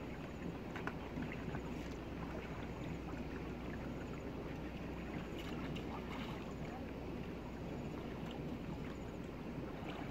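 River water sloshing and swirling around people wading waist-deep, a steady rushing with a few small splashes.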